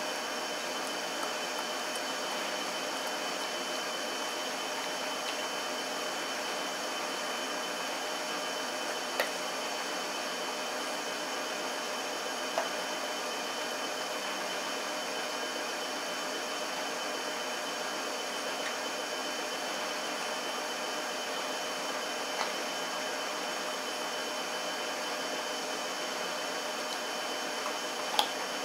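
A steady mechanical hum and hiss, broken by a few isolated sharp crunches of a Shar-Pei chewing raw chicken rib bones. The loudest crunch comes near the end.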